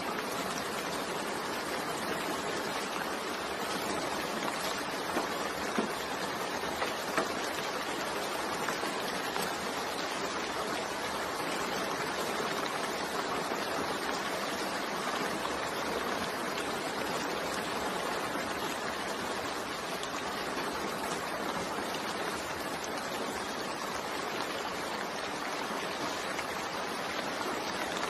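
Steady rain falling, an even hiss with a few sharper drop hits between about five and seven seconds in.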